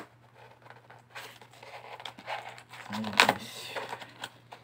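Cardboard box being handled and pried open by hand: soft rustling and scraping of cardboard, loudest for a moment about three seconds in.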